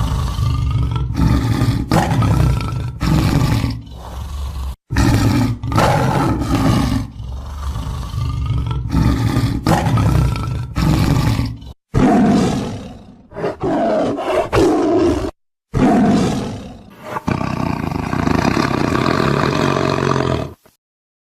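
Deep, loud roaring and growling from a cat, in several stretches that cut off abruptly.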